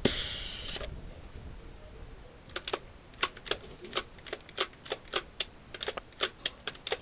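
A short hiss, then from about two and a half seconds in a long irregular string of sharp clicks and cracks, typical of airsoft guns firing and BBs striking.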